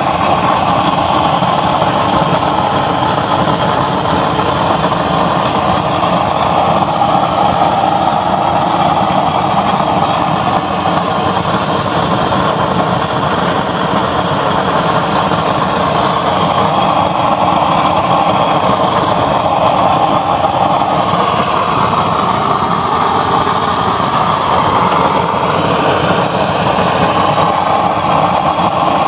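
Homemade 28-hole, 4-inch-chamber used-oil burner running with a blue flame: a loud, steady rush of burning oil vapour and air.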